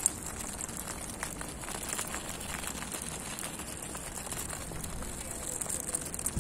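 Small homemade toy motorcycle built from soda cans driving across gritty ground: its small electric motor runs with a steady high hiss, and the wheels make scattered crackles and ticks on the grit. There is a sharp click at the very start.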